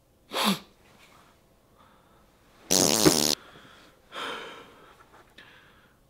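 A man's ragged breathing as he fights back tears: a short sharp breath near the start, a loud rasping, sob-like breath of under a second about three seconds in, then a softer shaky breath.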